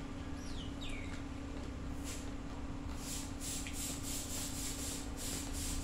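Close chewing of crunchy food with the mouth closed: a quick series of crisp crunches, about three a second, starting about two seconds in.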